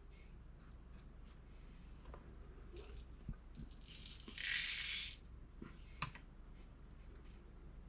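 Small clicks and knocks of shotshell reloading gear being handled, with a brief hissing rattle of copper-plated lead shot pouring about four and a half seconds in, and a sharp click near six seconds.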